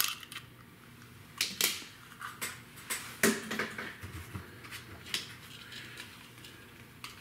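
Handheld plastic egg-cracker gadget and eggshells clicking and cracking over a glass bowl as eggs are cracked, a series of irregular sharp clicks.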